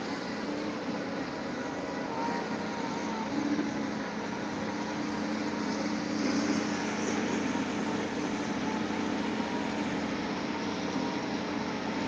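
Engine of a piling rig running steadily, an even mechanical drone with a constant low hum.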